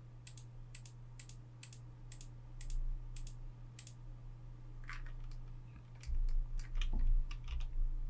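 Computer keyboard and mouse clicking in irregular clicks a few a second, coming thicker in the second half, over a steady low hum.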